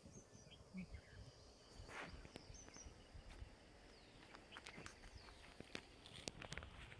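Near-silent riverbank ambience: faint high chirps of small birds now and then, a soft rustle about two seconds in, and a few light clicks and taps.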